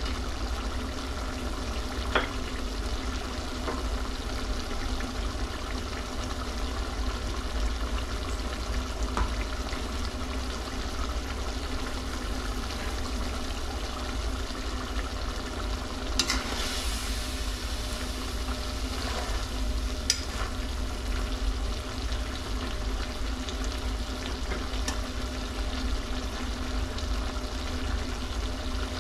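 Goat liver frying in a pan, a steady sizzle, with a few sharp knocks of the stirring utensil against the pan.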